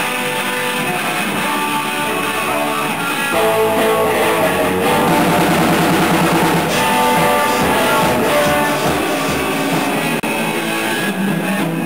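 Rock band jamming: electric guitars with a drum kit, getting louder about three and a half seconds in.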